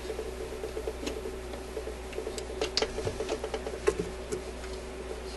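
Admiral suitcase record player's changer mechanism: a steady hum with fast, light ticking, and a few sharp metal clicks near the middle as the changer parts are worked by hand. The mechanism seems to be binding up a little.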